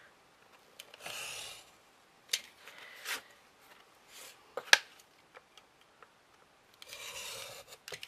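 Snap-off craft knife drawn along a metal ruler through grey chipboard in short rasping strokes, about a second in and again near the end. Sharp clicks and taps come in between as the ruler and cut board are handled.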